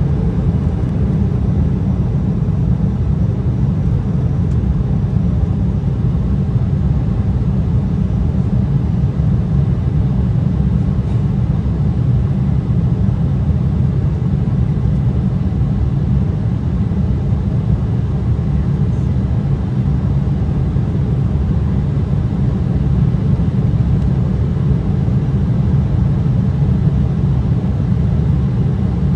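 Steady low rumble inside the cabin of an Embraer E175 regional jet, its twin turbofans running, holding at an even level without rising or falling.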